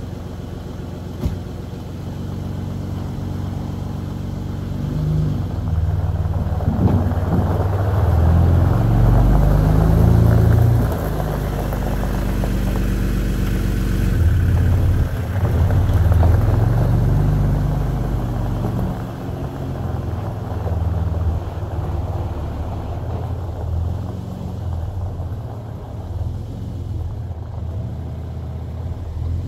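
Diesel engine of a Volvo 6x6 camper truck running as the truck drives on gravel, its pitch rising and falling with the throttle. It is loudest about eight to eleven seconds in and again around fifteen seconds, then settles lower as the truck moves away.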